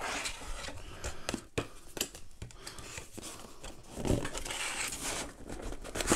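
Cardboard packaging being handled: a printed outer sleeve slid off a graphics-card box, paper scraping and rubbing, with a couple of light taps and louder handling about four seconds in.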